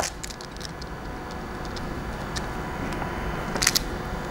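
Light clicks and ticks of small parts being handled at a workbench, a crimp terminal on a wire and a crimping tool being picked up. There is a sharp click at the start, a single click midway and a quick double click near the end, over a steady low hum.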